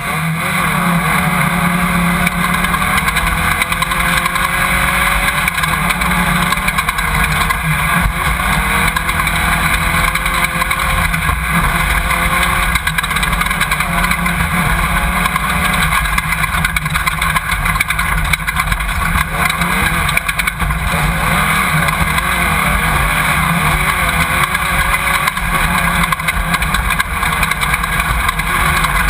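Off-road race car's engine running hard, heard from inside the car, its pitch rising and falling with the throttle. A dense, steady rushing and rattling noise of the car at speed runs under it.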